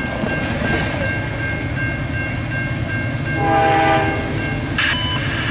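Grade-crossing warning bell ringing steadily over the low rumble of an approaching freight train, whose locomotive air horn sounds one short chord blast about three and a half seconds in.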